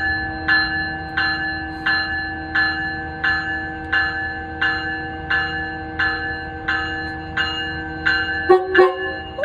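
Railroad bell ringing steadily, about three strokes every two seconds. Near the end the ringing gives way to short blasts of the Metrolink train's horn.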